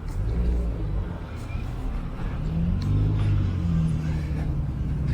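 A motor vehicle's engine running close by on the street: a low, steady engine note that comes up at the start.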